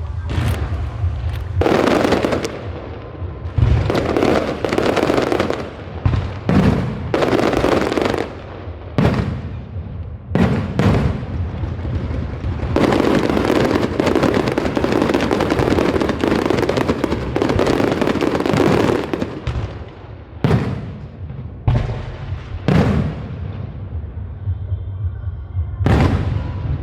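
Fireworks show: a rapid series of bangs from aerial shells, with long stretches of dense crackling bursts in between.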